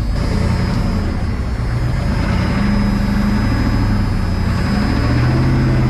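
Ford 7.3 IDI V8 diesel running at a raised idle, held up by a stick wedged against the accelerator pedal; its engine speed steps up a little twice. A thin steady high whine sits over the engine note.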